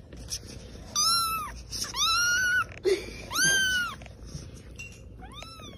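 Kitten meowing: four high-pitched meows, each rising and then falling in pitch, the last one fainter.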